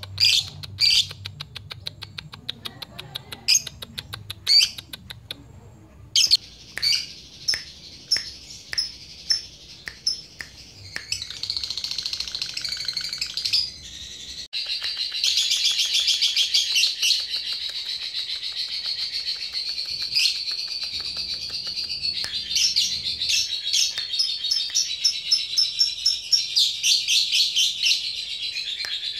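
Lovebird calling: sharp separate chirps and quick clicking chatter at first, then, about halfway through, a long unbroken rapid chattering trill (the 'ngekek' call). Keepers use this as a challenge call to draw rival lovebirds into calling.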